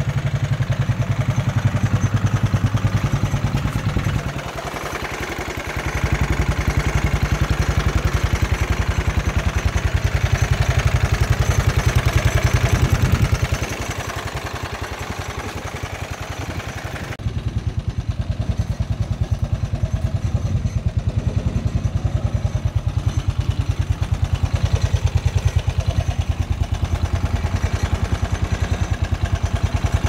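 Kinroad XT250GK buggy's 250cc engine idling with a steady, even firing beat. The level sags twice for a couple of seconds.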